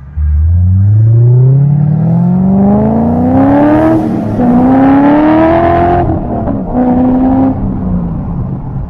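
Chevrolet C6 Corvette V8 with LG Motorsports long-tube headers and exhaust accelerating hard: the exhaust note climbs in pitch for about four seconds, drops back at a gear change and pulls again, drops once more at about six seconds, then eases off near the end.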